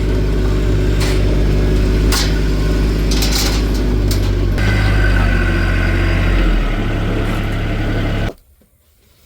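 A vehicle engine running steadily with a low, even note that shifts slightly about four and a half seconds in, then cuts off suddenly near the end.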